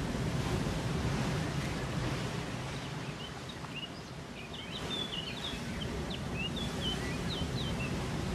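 Steady outdoor rushing hiss, with a small bird's quick high chirps from about three seconds in until near the end.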